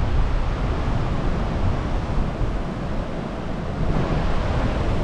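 Rushing floodwater with wind buffeting the microphone: a steady rushing hiss over a low, uneven rumble.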